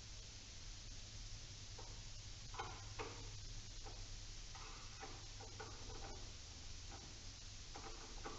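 Faint, irregular clicks and scrapes of a hand tool working on a battery terminal as a cable is disconnected, over a steady low hum.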